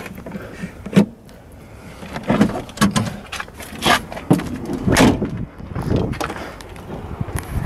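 A car's hood being released and lifted: a series of irregular metal clunks and knocks, roughly one a second.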